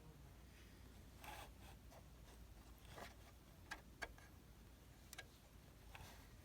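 Near silence: room tone with a handful of faint, scattered clicks and a couple of soft rubbing sounds.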